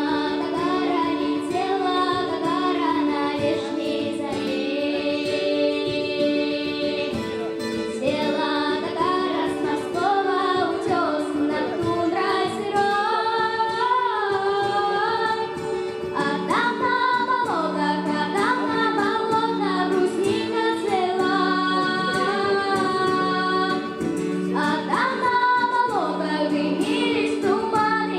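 A female voice singing a melody over steady instrumental accompaniment with held chords and a repeating bass note.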